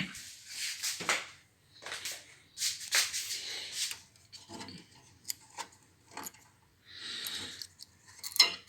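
Hands working a metal retaining spring free of a car's turn-signal lamp housing: a run of scraping and rubbing, then scattered small clicks and one more scrape near the end.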